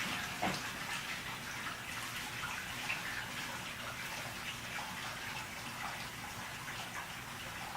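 Irregular small wet crackles and ticks over a steady hiss: hands working epoxy-wetted carbon fibre and foam pieces into place in a mold.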